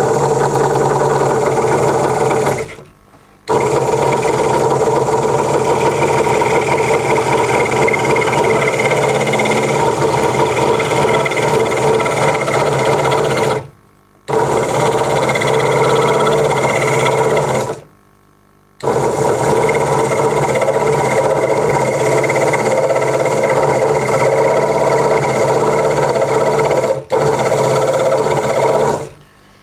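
Craftsman 22-inch scroll saw running at a reduced speed, its blade reciprocating steadily as it cuts small inside cutouts in oak. The sound breaks off a few times.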